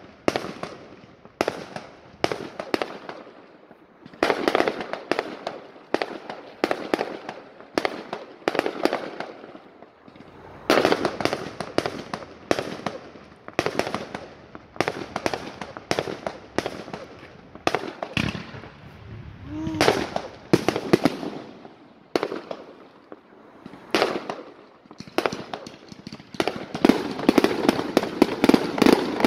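Fireworks display: sharp bangs of shells bursting, coming in clusters with gaps of a second or two between. A rising whistle about twenty seconds in, and a dense, rapid run of bangs near the end.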